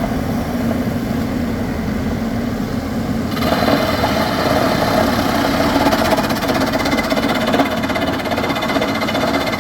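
Hydraulic rock drill rig running steadily; about three seconds in, a sharper, higher-pitched rapid clatter sets in and continues, as the drill works at full rate.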